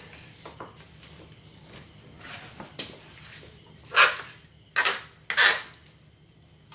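Small wet fish being sorted by hand and tossed into plastic basins: light clicks of handling, then three loud short splatting noises close together about four to five and a half seconds in.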